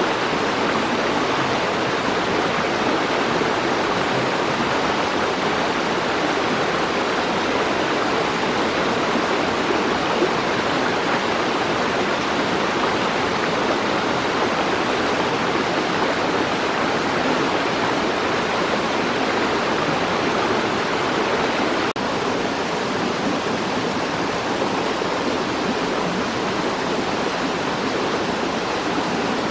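Steady rush of flowing stream water, an even, unbroken noise with a slight drop in level about three-quarters of the way through.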